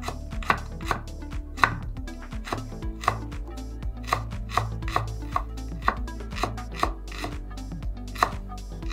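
Chef's knife mincing a garlic clove on a wooden cutting board: sharp knocks of the blade on the board in an uneven rhythm of about three a second.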